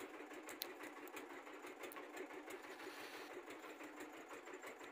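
Small boat engine running steadily, faint and fast-ticking, with a few light clicks on top.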